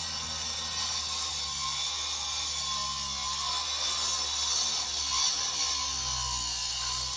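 Milwaukee M18 9-inch cordless angle grinder running steadily, a continuous hissing whine with a low hum beneath.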